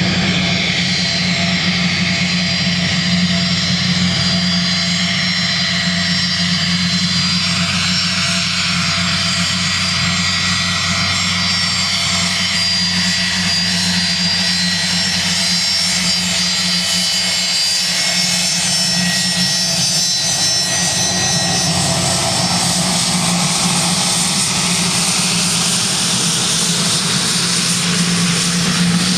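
JASDF U-4 (Gulfstream IV) business jet's twin Rolls-Royce Tay turbofans at taxi power as the jet taxis past: a steady low hum under several high whining tones. About three-quarters of the way through the whine fades, and a rushing jet-exhaust noise grows as the engines turn away.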